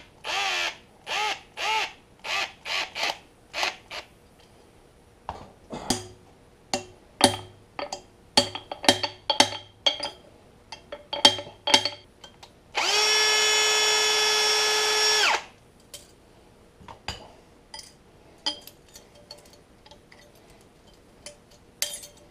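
Cordless drill and socket tightening large hose clamps around an internal snap ring to compress it. The motor runs in short bursts, about two a second, each spinning up and down. Then come a series of sharp, ringing metal clicks and taps, and a steady run of the drill for about two and a half seconds near the middle.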